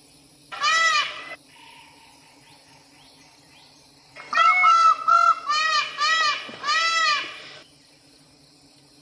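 An animal giving loud, short pitched calls that rise and fall in pitch: one call about half a second in, then a quick run of several calls from about four seconds in. A faint steady hum lies underneath.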